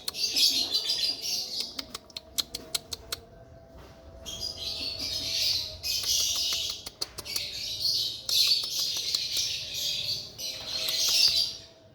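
A flock of lovebirds chattering in dense, high-pitched stretches of a second or two, with short gaps between them and rapid sharp ticks in the first few seconds.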